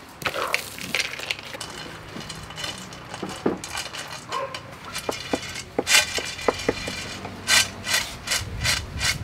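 Food preparation by hand: irregular scraping and rubbing strokes with scattered light clicks, and a quick run of rasping strokes near the end.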